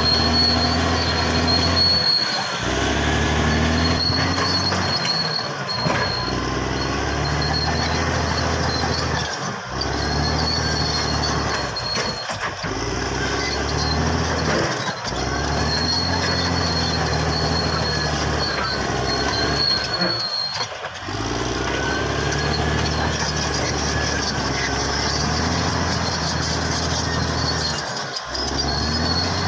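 Caterpillar D6R XL crawler bulldozer's diesel engine running under load while its steel tracks squeal and clank. The engine note dips briefly every few seconds as the machine works back and forth.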